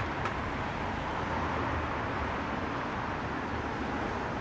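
Steady background rumble and hiss with a low hum, with a faint click at the start.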